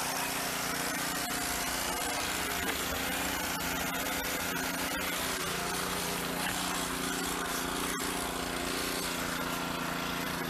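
Gasoline pressure washer's small engine running steadily.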